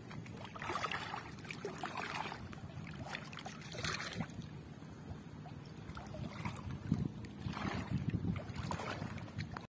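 Water splashing and sloshing in soft, irregular swishes every second or two.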